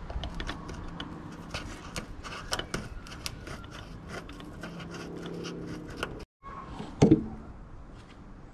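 Irregular small metallic clicks and scrapes of hands working a screw and bracket at the hood latch on the underside of a carbon fibre hood. After a brief break, a single loud knock comes about seven seconds in.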